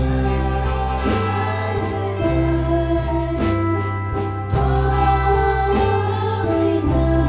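A song played with singing: held vocal notes over a steady bass line, with occasional drum hits.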